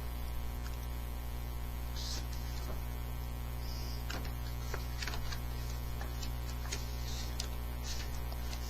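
Steady electrical mains hum, with a few faint clicks and brief soft rustles.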